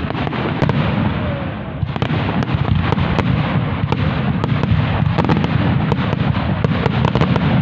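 Fireworks display: a dense, continuous barrage of shell bursts and crackling, with many sharp bangs in quick succession, growing denser about two seconds in.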